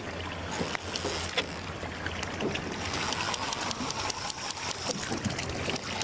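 A fishing boat's engine idles with a steady low hum. Water sloshes around the hull, with scattered light clicks and knocks.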